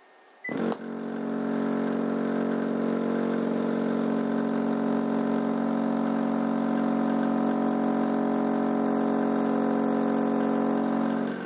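Crossfire C3 12-inch subwoofer driven hard by an amplifier with a low test tone, giving a loud, steady low hum with many overtones as it pumps air through the sealed box into a second subwoofer used as a generator. It comes on with a click about half a second in and falls off in level near the end.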